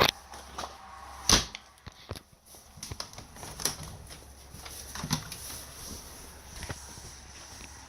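Scattered sharp knocks and clicks in a small room, the loudest about a second in, over faint steady room noise.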